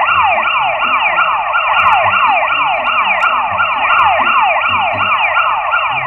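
Emergency-vehicle yelp siren sound effect: a fast wail that sweeps down in pitch over and over, about three or four times a second.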